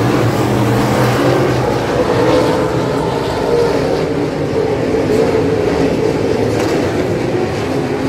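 Super Stock dirt-track race cars' engines running together as the field circles the oval: a loud, steady drone with no single car standing out.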